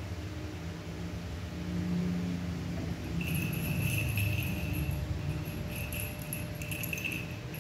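Small bell on a cat's collar jingling in quick, irregular shakes as the cat runs, starting about three seconds in and stopping near the end.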